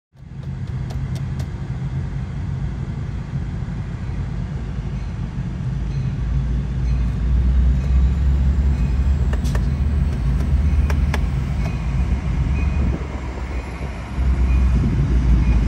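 Low rumble of a Sounder commuter train's EMD F59PHI diesel locomotive, heard from inside a car cabin. The rumble grows louder about six seconds in and again near the end, with a few light clicks.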